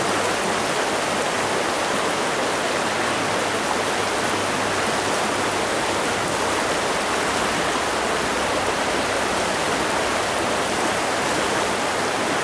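Steady rush of a rocky trout stream's riffle, water running fast over stones.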